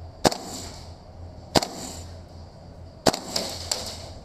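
Airsoft gun firing three single shots about a second and a half apart, each a sharp crack with a short hiss after it, followed near the end by a quick rattle of smaller clicks.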